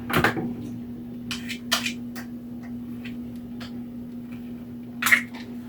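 Small plastic hamster-cage accessories being handled and set in place: a few short clicks and rustles over a steady low hum.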